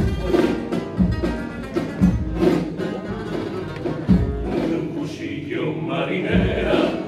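Spanish guitars playing the introduction of a Cádiz carnival pasodoble with a steady beat about once a second. A men's choir comes in singing about five seconds in.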